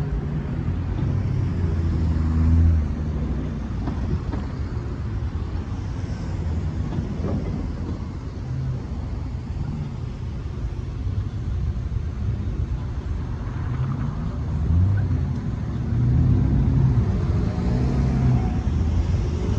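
Road traffic: cars and pickup trucks driving over a railroad crossing, their engines and tyres rising and fading as each one passes.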